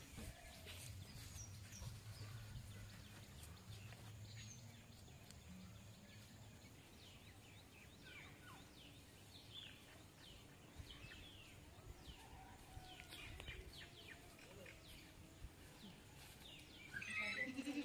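Faint outdoor ambience with scattered short bird chirps.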